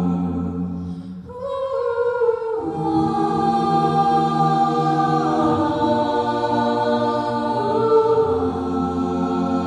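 Mixed-voice a cappella group singing held chords, some voices through handheld microphones. The low voices drop out about a second in and come back near the third second, and the chord moves several times.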